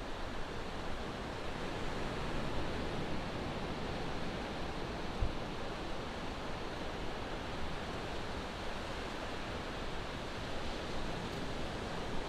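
Ocean surf washing on the beach: a steady, even rush of breaking waves, with one brief low thump about five seconds in.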